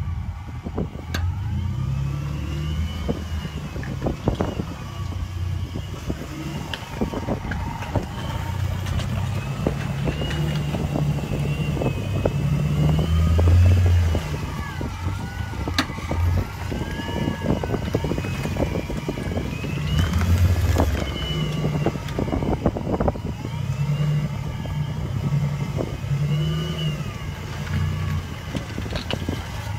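A 4x4's engine revs and labours off-road, surging and easing repeatedly. Scattered sharp knocks and clunks run through it, along with a wavering whine that rises and falls.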